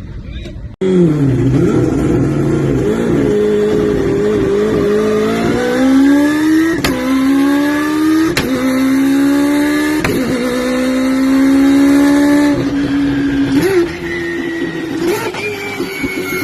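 A car engine accelerating hard through the gears: its note climbs, drops sharply at each of three quick upshifts, then steadies and eases off near the end.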